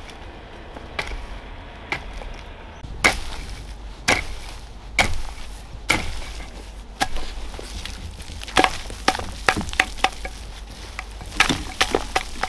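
Repeated chopping strokes, sharp and regular at about one a second, then quicker runs of strokes past the middle and again near the end.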